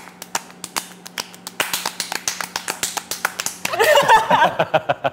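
Two people playing a hand-clapping game, palms slapping together in a quick run of claps, several a second and faster after the first second or so, with a short bit of voice near the end.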